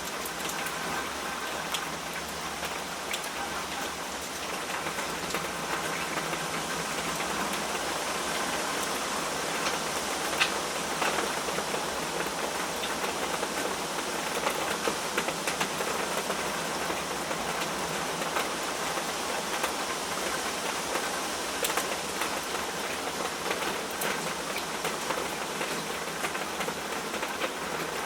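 Steady rain falling, a dense even hiss dotted with the taps of single drops; one sharper drop tap comes about ten seconds in.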